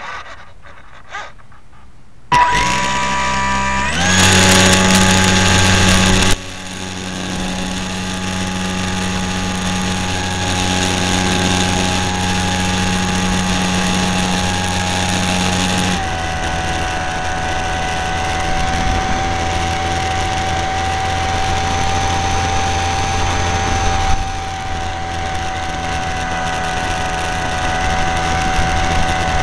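Radio-controlled model airplane's motor spinning its propeller, heard from a camera on board: it spins up in two steps a couple of seconds in and runs at full throttle for a few seconds for the takeoff, then eases back to a steady whine in flight, dropping slightly in pitch about halfway through.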